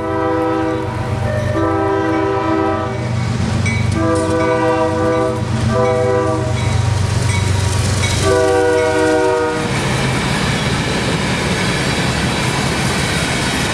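CSX freight locomotive's multi-tone horn sounding five blasts, most of them long, for the grade crossing over the steady rumble of the lead diesel units passing. About ten seconds in the horn stops and the freight cars roll by with a steady clatter of wheels on rail.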